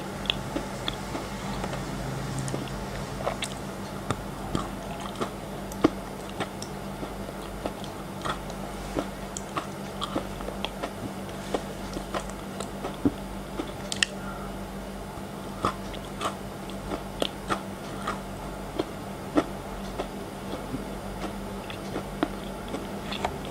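Close-miked chewing of frozen chocolate, with many short, sharp crunches coming irregularly, a few a second.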